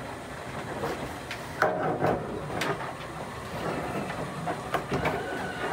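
PVC drain pipe and fittings knocking and clicking as the assembly is handled and pushed onto the sink outlets, several light knocks over a steady background noise.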